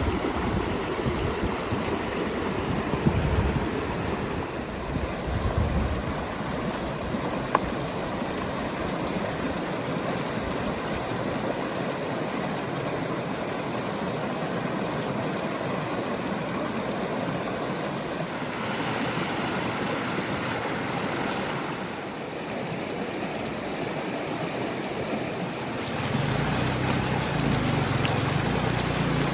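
River water flowing steadily, a constant rushing. A low rumble joins in during the first few seconds and again over the last few.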